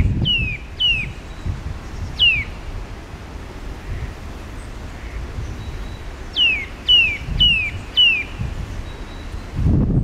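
Eurasian nuthatch calling: clear whistled notes, each sliding sharply down in pitch. Two come near the start, one about two seconds in, and a quick run of four about six to eight seconds in.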